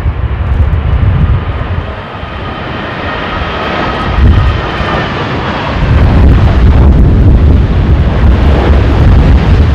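Jet airliner passing on landing approach, its engines whining with several steady tones in the middle, over heavy gusting wind buffeting the microphone, which grows stronger in the second half.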